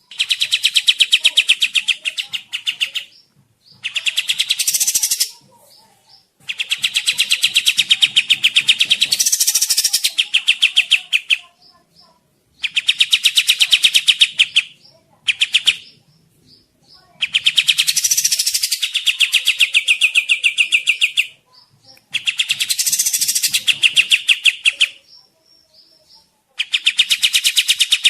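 Kapas tembak bird song: loud bouts of fast, chattering repeated notes, each bout a few seconds long, broken by short pauses. It is a recorded lure call used to draw in wild birds and to tutor caged songbirds.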